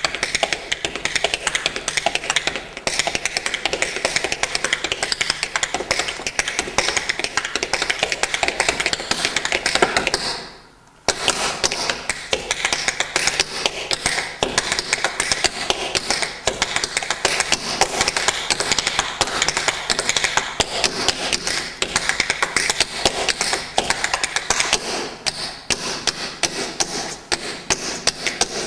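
Tap shoes striking a wooden stage floor in fast, dense rhythms, with no music. The tapping stops briefly about ten and a half seconds in, then resumes.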